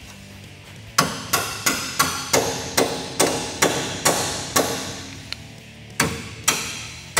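Ball-peen hammer striking a steel bolt, driving it through the rear panhard bar mount: about ten quick blows starting about a second in, roughly two and a half a second, then a short pause and two or three more blows near the end.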